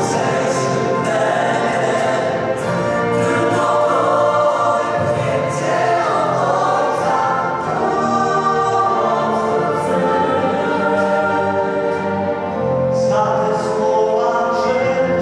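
Mixed vocal group of men and women singing together, accompanied by violins and a small string orchestra.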